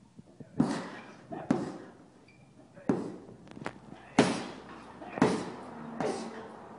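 Punches landing on a 550 lb heavy bag: about six heavy thuds, roughly one a second, unevenly spaced.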